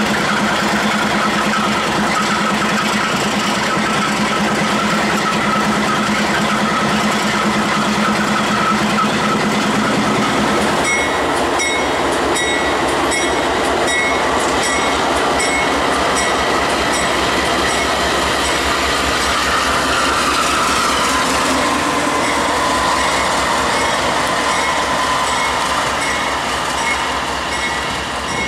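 Ferromex diesel-electric locomotives running: first a steady engine drone, then, from about ten seconds in, a locomotive rolling slowly past close by, its wheels clicking evenly over the rail joints under a steady high ringing squeal.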